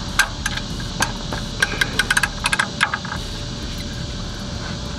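Irregular run of sharp metallic clicks and clinks from a wrench working on the oil drain plug under a car, bunched in the first three seconds, over a steady low background rumble.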